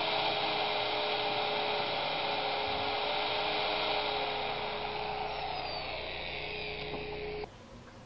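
A steady mechanical whine with one constant tone over a hiss, cutting off abruptly about a second before the end.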